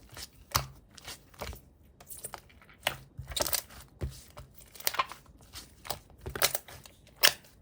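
Clear slime being pressed and squished by hand, giving irregular sticky clicks and pops, some of them sharp and loud.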